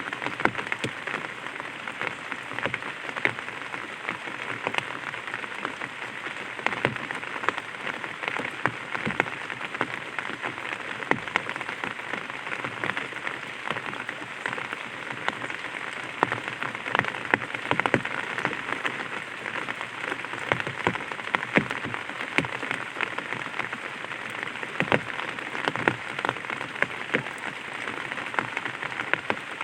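Light rain pattering steadily on an umbrella, a dense stream of small drop taps over a steady hiss.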